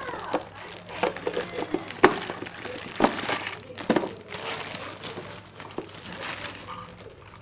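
Clear plastic packaging crinkling as a bag of plastic toy food is handled and pulled out of a plastic case, with a few sharp knocks about two, three and four seconds in.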